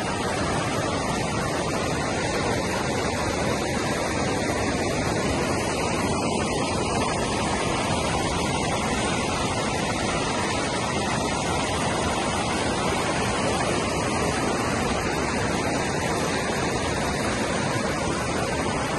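Small stream rushing and splashing over rocks close to the microphone, a steady, even rush of water.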